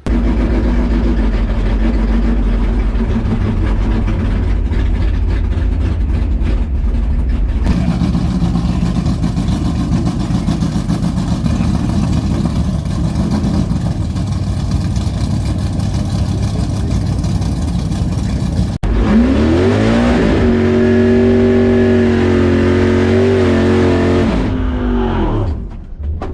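Loud V8 drag cars at the strip. A heavy engine rumble runs at first, and then, about 19 seconds in, a car accelerates hard down the track: its pitch climbs quickly, holds high for several seconds, then drops as it lifts off near the end.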